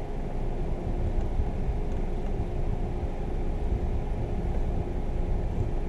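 Steady low rumble of a car idling, heard from inside the cabin, with a faint steady hum and no distinct events.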